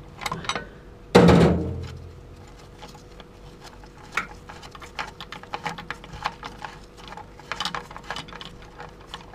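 A loud metallic clank about a second in that rings out for most of a second, then a run of small irregular metal clicks and taps as a wrench and fingers work the nut off the internal manual-lever linkage of a Ford AOD automatic transmission case.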